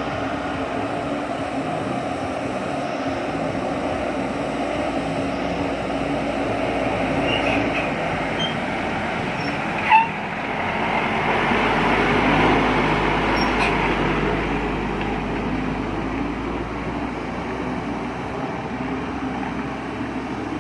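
Steady machine-like noise, with a single sharp knock about halfway through and a slight swell in loudness just after it.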